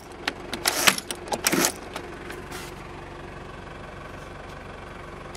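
The 1997 Toyota Hiace Regius's engine idling steadily, heard from inside the cabin. In the first two seconds there are a few brief rustles and knocks as a pleated window curtain is handled.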